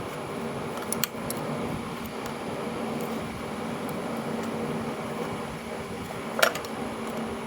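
Steady mechanical hum with a few short, sharp clicks of hand tools against metal parts: light ones about a second in and a louder one about six and a half seconds in.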